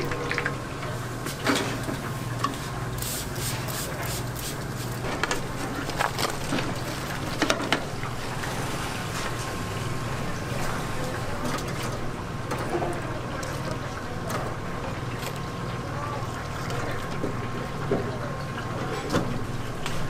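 Hot oil bubbling and sizzling in a deep fryer, with a steady low hum. Sharp metal clinks from wire frying baskets and strainers come several times in the first half.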